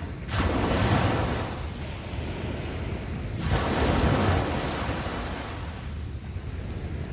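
Sea waves breaking on a beach: two waves wash in about three seconds apart, each swelling into a hissing rush and then draining away, over a steady low rumble of surf.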